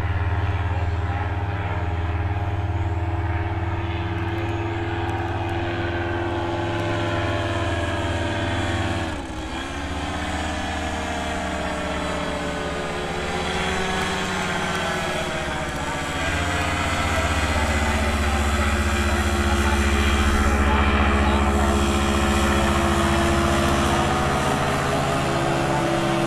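Powered paraglider's paramotor engine and propeller droning in flight overhead. Its pitch dips sharply about nine seconds in and climbs back, and it grows louder in the last third.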